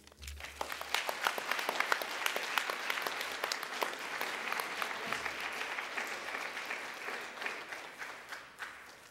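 Audience applauding, starting right away, then dying down gradually toward the end.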